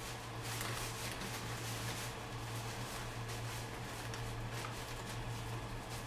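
Faint rustling and light handling clatter of someone rummaging through items in search of a cable, over a steady low hum.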